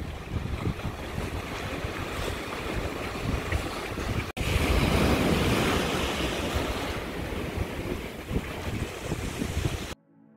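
Sea waves breaking and washing over coastal rocks, with wind buffeting the microphone. About four seconds in, a cut brings a louder rush of surf, and the sound cuts off near the end.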